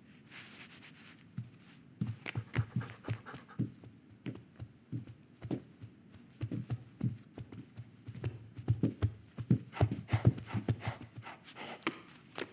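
Film Foley: a busy run of irregular soft thumps and taps that starts about two seconds in and is loudest around ten seconds in.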